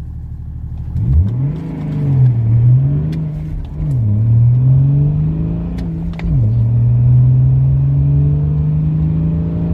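BMW 530d's 3.0-litre M57 turbodiesel straight-six under full throttle, heard from inside the cabin. It idles, revs up about a second in, and the revs dip as the car launches. It then pulls hard with two upshifts, the revs dropping at each, around four and six seconds in. After that it pulls steadily, the note slowly rising.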